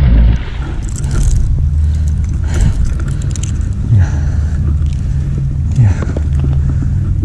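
A steady low engine-like rumble, over which a snakehead splashes as it takes the lure about at the start and is then fought and hauled onto the bank, with rod, reel and handling noises.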